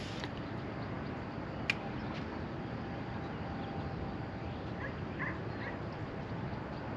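Wind buffeting the microphone as a steady low rumble, with one sharp click a little under two seconds in and a few faint, short high chirps about five seconds in.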